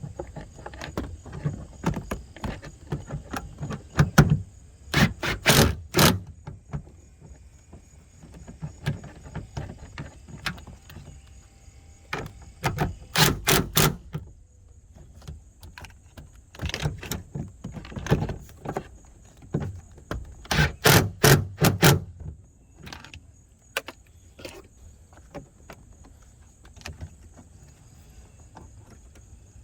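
Hand work on a car's side-mirror assembly: clusters of sharp clicks and knocks, several quick strokes at a time, separated by quieter stretches.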